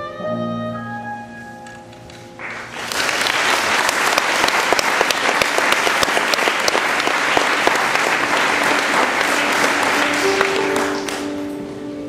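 Instrumental music holds its last sustained notes, then an audience breaks into applause about two and a half seconds in, filling most of the stretch; the applause fades near the end as instrumental music starts again.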